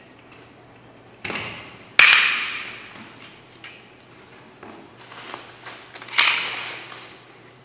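Hand tools clattering against a metal container, with three sharp knocks that each rattle away over about a second: a little past one second in, about two seconds in, and the loudest about six seconds in, with lighter taps between.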